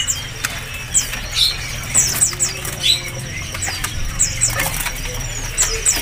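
Small caged songbirds chirping in many short, high, sweeping notes, with wings fluttering and light clicks against the cage. A steady low hum runs underneath.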